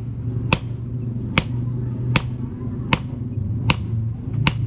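Hammer blows on a metal rod, six sharp ringing strikes at an even pace of about one every 0.8 seconds, over a steady low hum.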